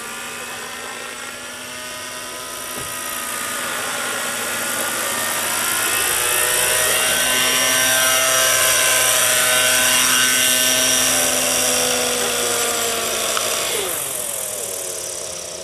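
Radio-controlled model helicopter flying close by: a whining rotor and motor drone over a rushing hiss. It grows louder toward the middle, then fades near the end as its pitch slides down.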